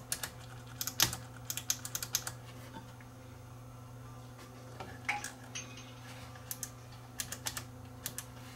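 Front-panel switches of a Technics SA-5470 stereo receiver clicking in quick clusters as they are worked back and forth; the switches are dirty. A faint steady hum runs underneath.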